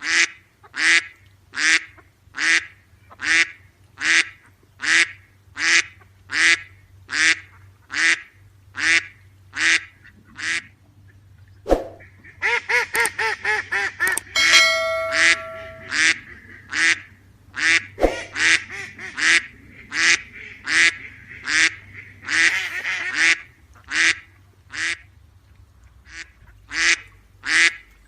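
A duck quacking over and over at a steady pace, a little under two calls a second. About halfway through the calls come in a faster run, with two sharp clicks and a short ringing tone, and a steady low hum sits underneath.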